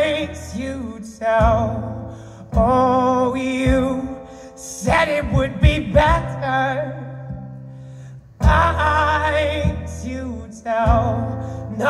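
Solo live performance of a male singer and an acoustic guitar. The voice holds long notes with a wavering vibrato, in phrases separated by short pauses, over strummed guitar chords.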